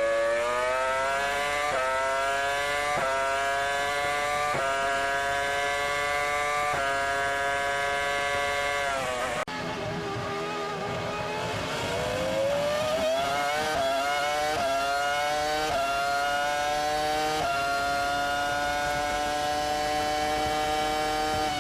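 Formula 1 car engine heard onboard, accelerating hard through the gears: the pitch climbs and drops sharply at each quick upshift, then falls away as the car slows. After a sudden cut about nine seconds in, an F1 engine again revs up through several upshifts and holds high revs.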